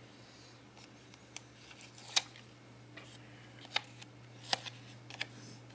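Paper stickers being handled over a planner page: a few short, sharp clicks and snips, the clearest about two seconds in and again around four and five seconds, over a low steady hum.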